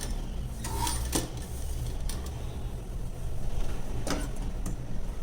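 Sewing machine running steadily as it stitches, with a few sharp clicks around one second in and again about four seconds in.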